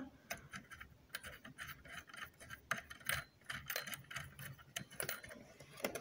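Soft, irregular small metallic clicks and ticks as the drive pin is screwed by hand onto the threaded motor shaft of an Oster blender, metal parts turning against each other.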